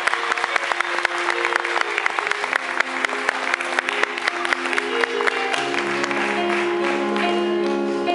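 Audience applauding over sustained keyboard chords; the clapping thins out over the last couple of seconds as the keyboard chords carry on alone.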